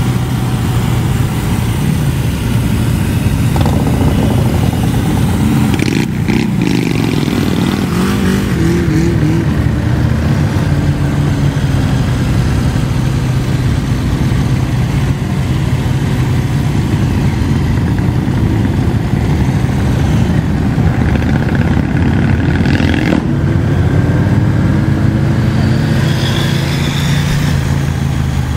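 Many motorcycle engines in a slow group ride. The rider's own engine runs low and steady under the rumble of the bikes around it, and engines rev up with a rising pitch about six seconds in and again about twenty seconds in.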